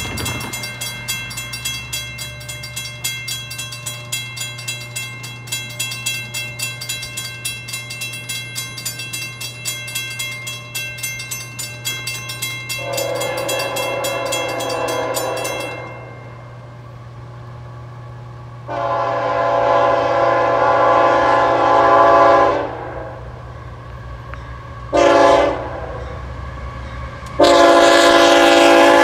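Railroad crossing bell ringing rapidly as the signals activate, stopping about midway. Then the lead locomotive of a CSX coal train, a GE ET44AH, sounds its chime air horn in the grade-crossing pattern of long, long, short, long, the last blast still sounding at the end.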